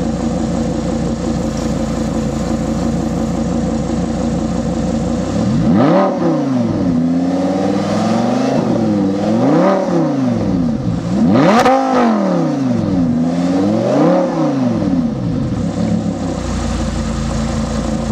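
Tuned Audi R8 engine idling, then revved in about five throttle blips, each rising and falling in pitch, the highest about two-thirds of the way through, before it settles back to idle near the end. Heard close behind the exhaust tips.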